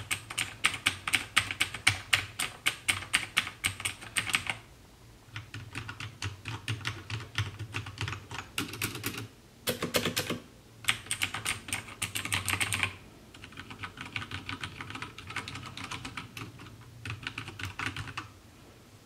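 Rapid typing on mechanical keyboards in several stretches with short pauses: the clicky blue switches of an Armaggeddon MKA-7C compared with softer Cherry MX Brown switches. The first few seconds are the loudest and sharpest clicking, and the later stretches are quieter.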